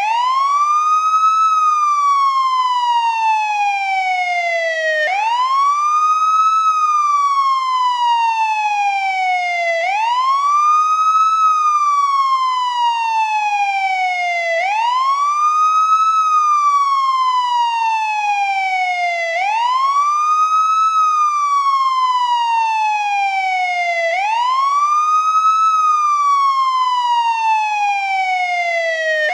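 Police siren on its wail tone, rising quickly in pitch and then gliding slowly back down, repeating about once every five seconds.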